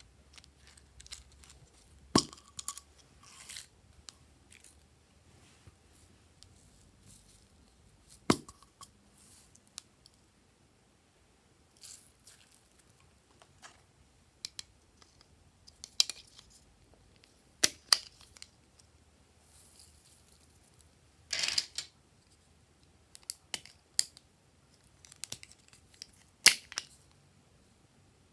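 Hands handling and opening small plastic containers, a candy tube and bean-shaped plastic cases: sharp plastic clicks and snaps scattered every few seconds, with light rustling and one longer scraping rasp about three-quarters of the way through.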